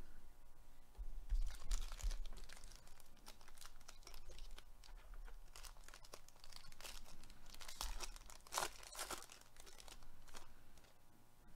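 Foil wrapper of a Panini Prizm baseball card pack crinkling and tearing as gloved hands open it: a run of rapid crackles with a louder stretch about three quarters through.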